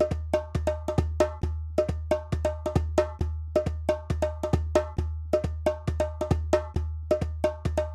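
Background music: a quick, steady beat of wood-block-like taps over a low pulsing bass.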